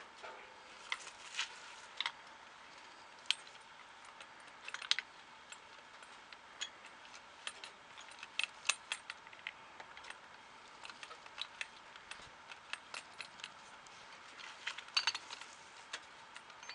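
Metal hydrant adapters and fittings clinking and rattling as they are fitted onto a fire hydrant's steamer and side ports: many scattered light clicks over a faint steady hiss.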